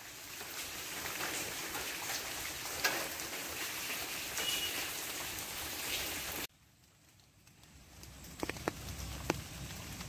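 Steady rain falling on leaves, a dense even hiss. About six and a half seconds in it cuts off suddenly to quieter rain that builds again, with a few sharp drops striking leaves close by near the end.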